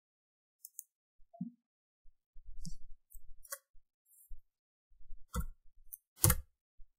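Computer mouse and keyboard clicks: a handful of short, separate clicks, the loudest a little after six seconds in.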